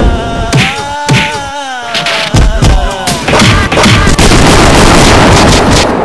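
Loud, distorted live folk music: a singer's held, wavering notes over drum strikes. About three seconds in it gives way to a dense, overloaded clatter of rapid hits.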